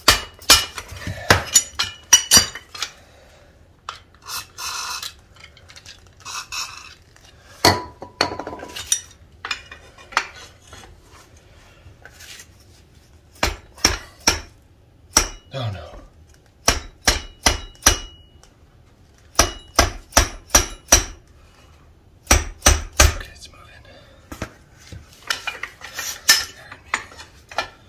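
Plastic-faced mallet striking the lever and wrench of a seized diesel exhaust brake clamped in a vise, with metallic clinks. The strikes come in quick runs of several blows with pauses between. They are hammering the rusted shaft loose after heating and penetrating oil.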